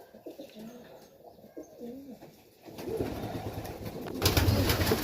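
Domestic pigeons cooing in a loft, low rising-and-falling coos. Past halfway a rough rustling and scuffling noise comes in and grows louder near the end.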